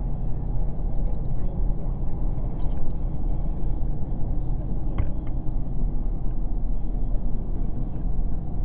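Steady low rumble of road and engine noise from a vehicle driving at motorway speed, heard from inside, with a couple of faint clicks about two and a half and five seconds in.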